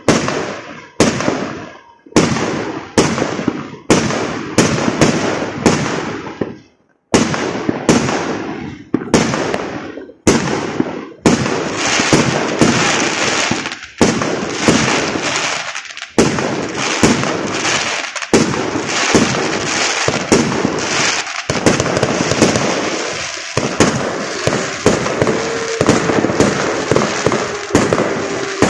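Aerial firework shells bursting: separate loud bangs about one or two a second, each trailing off, with a short pause about six seconds in. From about eleven seconds in the bangs come thick and overlapping in a continuous barrage.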